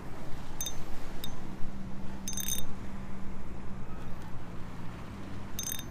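Fishing reel ratcheting in a few short clicking bursts, the sign of a heavy catfish being fought on the line. A low steady hum runs underneath.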